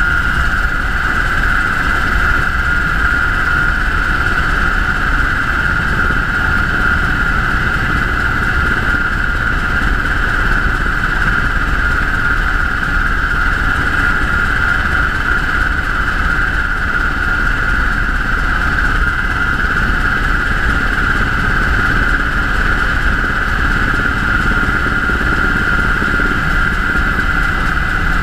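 UH-60 Black Hawk helicopter in flight: a steady, loud drone with a constant high whine over a low rumble, unchanging throughout.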